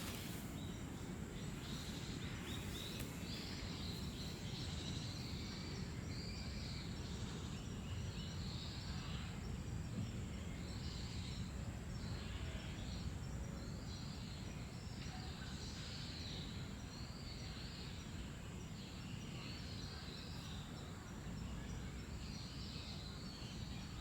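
Small birds calling with short, high chirps about once a second, over a steady low background rumble.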